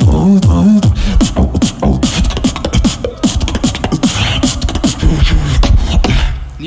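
Live solo beatboxing: a fast, dense run of vocal drum sounds (kicks, snares, clicks), with a wavering pitched vocal tone in the first second.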